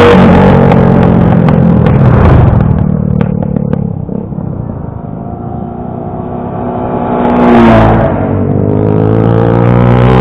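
Motorcycle engines passing close by: a cruiser motorcycle's engine loud at the start and fading as it rides off, with a few sharp ticks as it fades, then more motorcycle engines swelling again from about eight seconds in.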